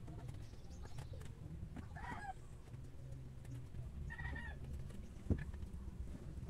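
Two short animal calls about two seconds apart, and one sharp knock about five seconds in, over a low rumble.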